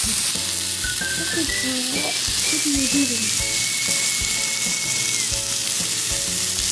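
Meat sizzling steadily on a hot yakiniku grill, with a soft background tune stepping through a simple melody over the hiss.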